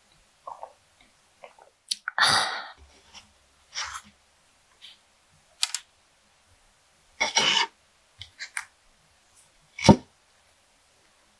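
Close-miked eating-table handling sounds: a loud breathy exhale about two seconds in, then soft cream-filled breads being shifted about on a wooden board, with one sharp knock against the board near the end.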